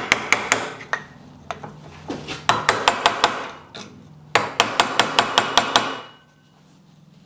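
Hammer tapping a screwdriver against a stuck circlip on a Land Rover Defender prop shaft's universal joint held in a bench vise, to work the circlip free. Sharp metal-on-metal taps come in three quick bursts of about five a second, with a few single taps between.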